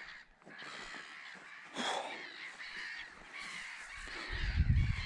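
A black-headed gull colony calling: many harsh cries overlapping, one louder call about two seconds in. A low rumble comes in near the end.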